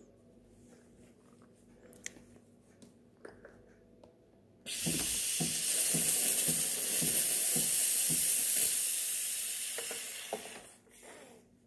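Espresso machine steam wand purged into a microfibre cloth. A loud steam hiss starts suddenly about four and a half seconds in, with low pulsing sputters under it at first, and dies away after about six seconds. It clears condensed water from the wand before the milk is steamed.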